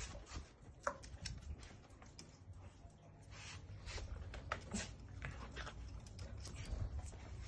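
Faint scattered clicks and scuffs of a small dog's claws as it moves about on a plastic wicker armchair, with brief rustling.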